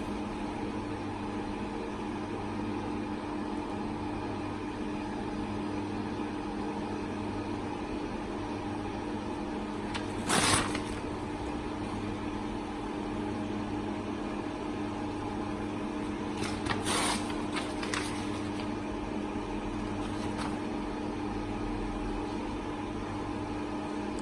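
Model 50B single-clamp perfect binding machine idling with a steady hum. Paper rustles briefly once partway through and a few times later as the bound book block is handled.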